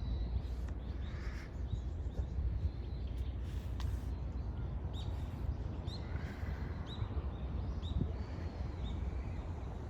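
A bird the hiker takes for a hawk calling, a series of short high chirping calls about two a second, clearest in the second half, over a steady low rumble.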